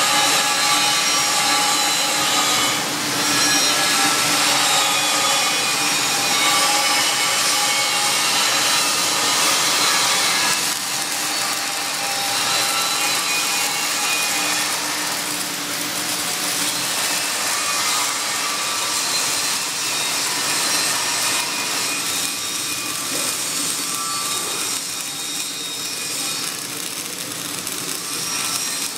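Flux-cored arc welding on carbon-steel plate in the vertical (3G) position: the arc's steady crackling hiss, unbroken, a little quieter in the second half.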